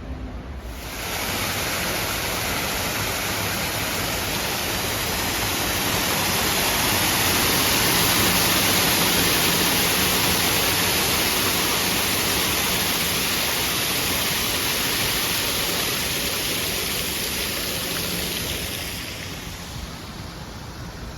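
Water rushing and splashing over a cascade in a stream, heard as a steady hiss. It swells up about a second in, is loudest around the middle and fades away near the end.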